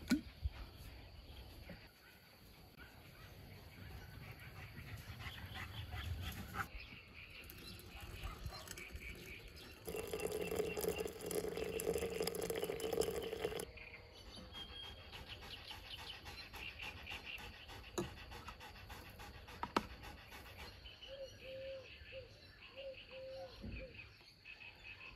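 Hot water running from a samovar's tap into a glass teapot, a steady splashing pour lasting about four seconds partway through. Quiet clinks and handling sounds come before and after it.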